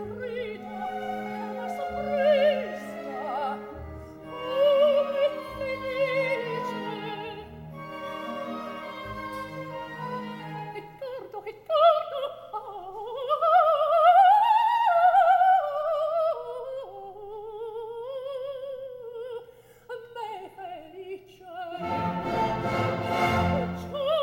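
Coloratura soprano singing opera with wide vibrato, accompanied by an orchestra. Held lines over short low notes give way about halfway through to rising, winding phrases. A fuller, louder orchestral passage comes in near the end.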